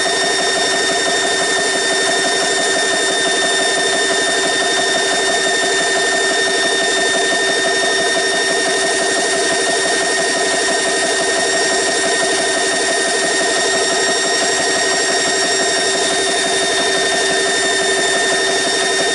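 GX CS3 portable high-pressure air compressor running steadily as it fills an air-gun tank near the top of its fill, close to 3,000 psi. It is a steady whine of several held tones over a fast mechanical rattle.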